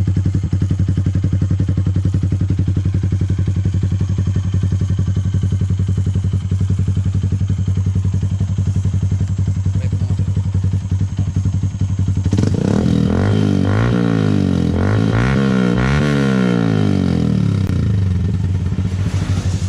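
Yamaha Sniper 150's single-cylinder engine idling through a Yoshimura Alpha exhaust run as an open pipe without its silencer, on a stock ECU. About twelve seconds in it is revved in a run of quick throttle blips, rising and falling, for about five seconds, then settles back to idle.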